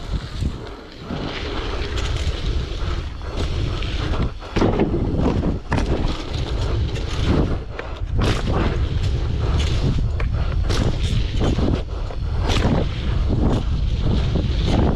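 Wind buffeting the microphone while a bicycle is ridden over dirt jumps. There is a steady low rumble with frequent knocks and rattles from the bike, which get louder about four and a half seconds in.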